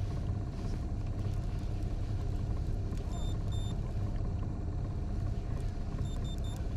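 Boat motor running steadily at trolling speed, a low even hum. Short high electronic beeps sound twice around the middle and three times near the end.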